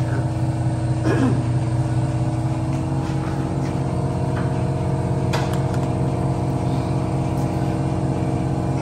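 Steady machine drone with several fixed pitches and a strong low hum, with a couple of light metallic clicks over it.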